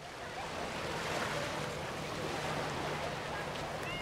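Steady wash of surf and wind, swelling up over the first half-second, with a faint low hum underneath.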